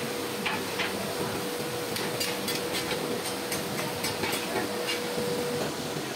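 Iron foundry workshop noise: a steady hum under a scattered run of short, sharp taps and clicks from workers' hand tools on the sand moulds, thickest from about two to five seconds in.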